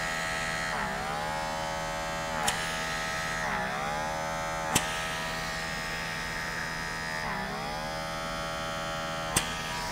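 Lumina Dermapeel suction facial device running steadily on level 4, a motor whine that dips briefly in pitch about four times as the tip is drawn down the nose. A few short sharp clicks sound over it.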